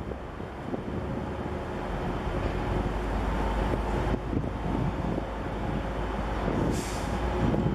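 Wind buffeting the microphone over the low, steady rumble and hum of the HMM Algeciras, a 24,000-TEU container ship, under way. A short hiss comes near the end.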